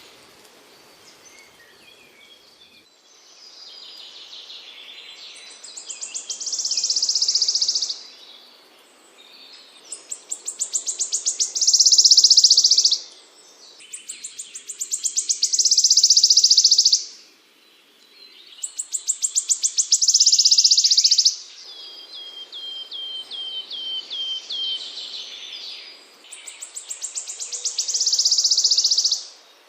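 A small songbird singing repeated phrases. Each phrase is a quickening run of sharp notes that runs into a high, dense trill about a second and a half long, and it comes back about every four seconds, five times. Midway there is a run of about eight short down-slurred whistles instead.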